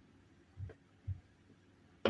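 Two soft, low thuds about half a second apart, over faint room tone.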